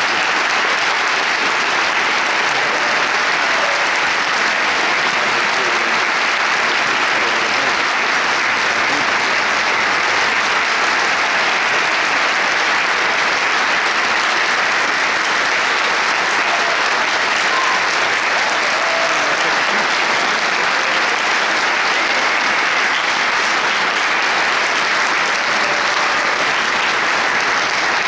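Concert audience applauding steadily: dense, even clapping from a large crowd with no music playing.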